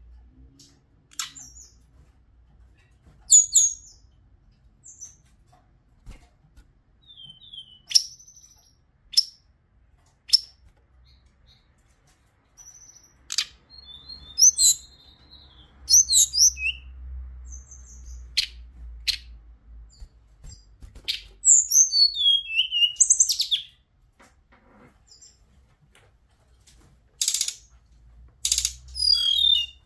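Hill blue flycatcher (Cyornis whitei) calling with scattered sharp chips. A short song phrase of notes falls from high to lower pitch about two-thirds of the way through, and a quick run of notes comes near the end.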